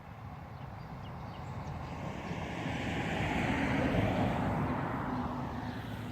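A motor vehicle passing by: a broad engine rush that swells, peaks about four seconds in and then fades, over a low steady hum.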